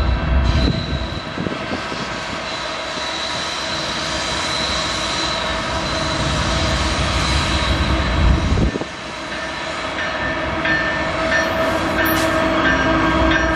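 Approaching CN freight train led by GE ES44AC diesel-electric locomotives, whose GEVO-12 V12 engines run under a continuous rail noise with a steady whine, getting slightly louder near the end as the train draws close.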